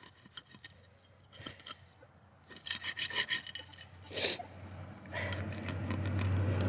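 Scraping and rustling of dirt and roots, in scattered crackles and a few scratchy bursts, giving way about five seconds in to a steadier rushing noise.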